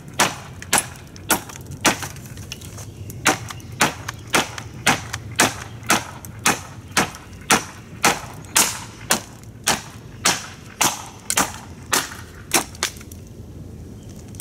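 Hatchet chopping repeatedly into a wooden pallet board at about two strikes a second. Each blow is a sharp chop into the dry, splintering wood. The strikes stop about a second before the end.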